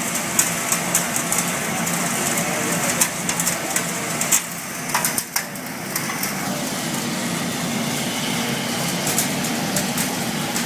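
3500 kW industrial sawdust burner running: a steady mechanical hum with frequent irregular sharp crackles and clicks.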